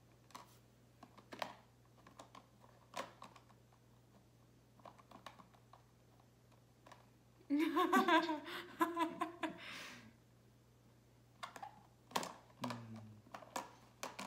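Scattered light clicks and taps of small plastic lip balm tubes and caps being handled, with a woman laughing for about two seconds near the middle.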